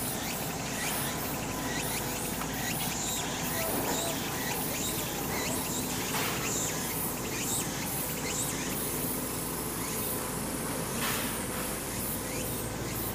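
Outdoor ambience: steady insect buzzing with many short, high chirps scattered through it, over a low steady rumble.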